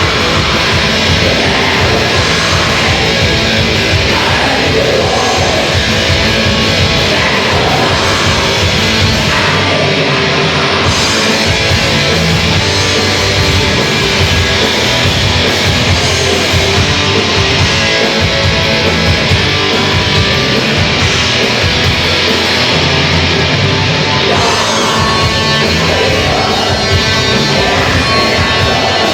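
A metal band playing live: loud, dense electric guitars over drums, with no let-up.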